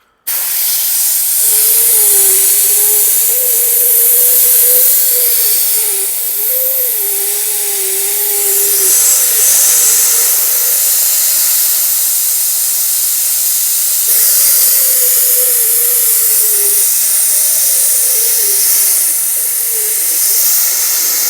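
A strong jet of air hissing against the rubber door-opening seal of a Li Auto L7. A wavering hum near 400–500 Hz comes and goes with it as the seal resonates. This is the same hum the car makes at motorway speed, caused by the seal sitting in the airflow.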